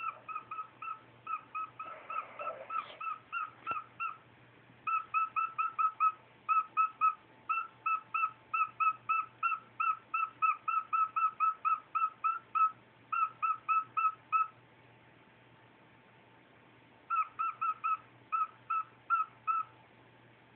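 Cockatiel beeping: long runs of short, even-pitched beeps, about three a second, with a pause of a couple of seconds before a last shorter run.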